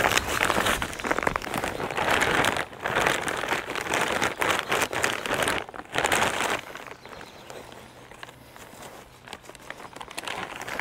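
Plastic potting-mix bag crinkling as it is handled and tipped, with potting soil pouring out into a terracotta pot. About two-thirds of the way through the rustling stops, leaving a quieter stretch with a few light ticks.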